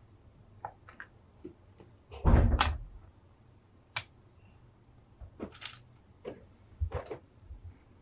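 Plastic clicks and taps as small parts are pressed onto a painted PVC scale figure: the wing pieces fitted to its back. A louder, longer thump comes about two seconds in, followed by scattered sharper clicks.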